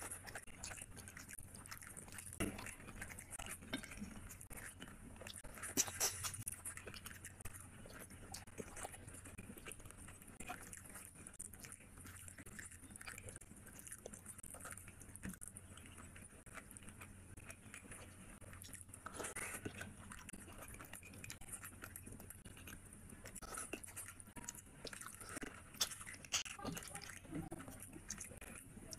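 A person chewing fish head curry, with scattered short crunches and small clicks.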